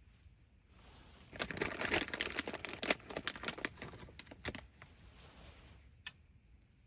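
Handling noise: a dense burst of rapid crinkling and clicking for about three seconds, followed by a single sharp click near the end.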